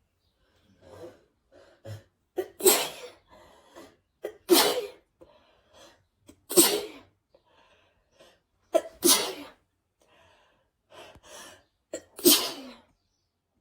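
A person with a cold sneezing five times in a row, roughly two to three seconds apart. Each loud sneeze comes after a quick catching inhale, with shaky breaths between them.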